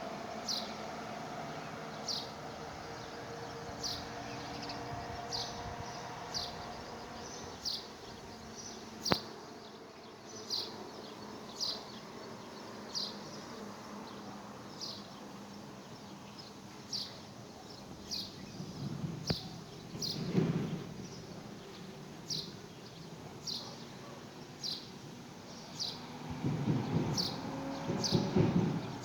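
A small bird repeating a short, high, falling chirp about once a second, over outdoor background with a few low rumbling gusts near the middle and end.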